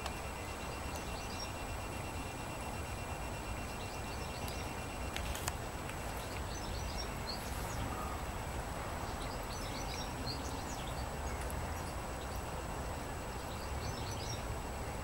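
Outdoor ambience: a steady low background rumble, with faint high bird chirps in short clusters every few seconds.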